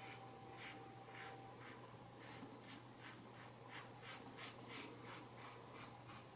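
Single-blade razor scraping through lathered stubble in short, quick strokes, about three a second, faint.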